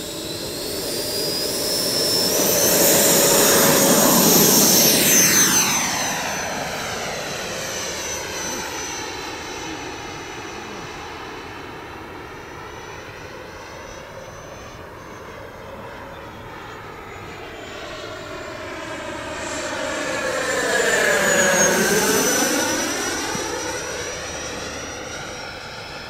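90mm electric ducted fan of an FMS Super Scorpion RC jet spooling up with a rising high whine for takeoff, then rushing past loudest about four seconds in with the pitch sweeping down as it goes by. It fades in the distance and makes a second loud pass about twenty-one seconds in.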